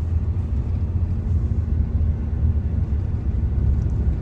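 Steady low rumble of a truck on the move, heard from inside the cab: engine and road noise.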